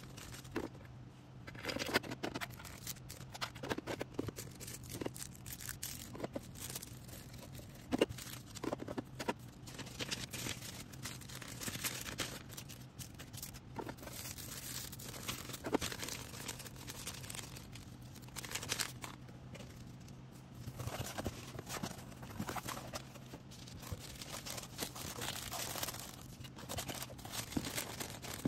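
Hand-packing of an order: plastic packaging crinkling and rustling with tearing sounds and small clicks and taps, irregular and continuous.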